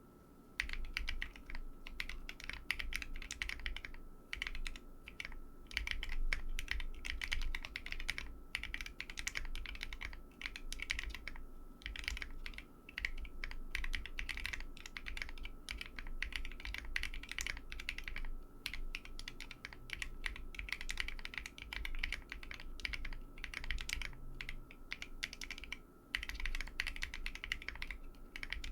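Typing on a Bakeneko 60 mechanical keyboard with lubed Tecsee Coral tactile switches and Cherry-profile dye-sublimated PBT keycaps: a fast run of key clicks with a few brief pauses.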